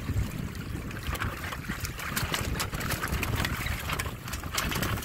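Water rushing and splashing along the hull of a Windrider 17 trimaran under sail, over a low, uneven rumble. The splashing grows busier from about two seconds in.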